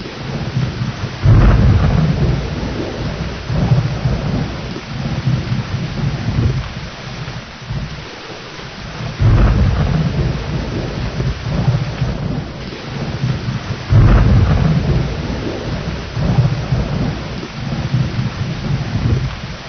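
Steady heavy rain with rolling thunder. Three low rumbles of thunder break in suddenly, about a second in, around nine seconds and around fourteen seconds, and each dies away over several seconds.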